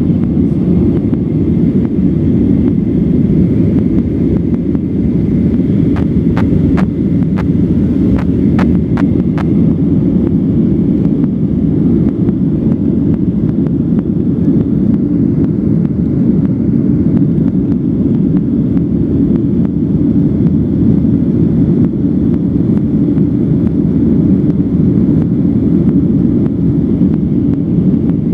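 Boeing 737-900's CFM56 jet engines and airflow as a steady, loud rumble heard inside the passenger cabin, with a faint steady whine above it. A quick run of about half a dozen light clicks comes a third of the way in.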